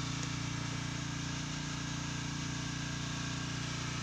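Small fishing boat's engine running steadily, a low, even drone with no change in speed.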